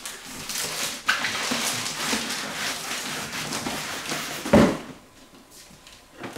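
Cardboard and bubble-wrap packaging being handled, rustling and scraping, with one loud thump about four and a half seconds in.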